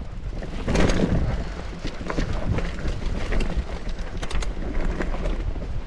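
Hardtail mountain bike ridden over a rough, rooty trail: tyres rolling on dirt and roots with the chain and frame rattling and knocking at every bump, and a heavier jolt about a second in. A low rumble of wind on the microphone runs underneath.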